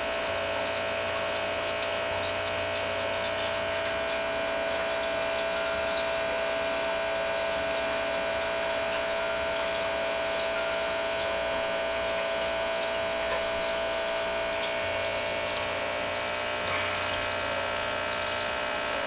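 Aquarium pump running with a steady hum, with water trickling and bubbling in the tank.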